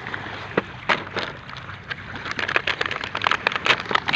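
Toy packaging being worked open one-handed: irregular rustling, crinkling and small clicks of handled packaging, growing busier about halfway through.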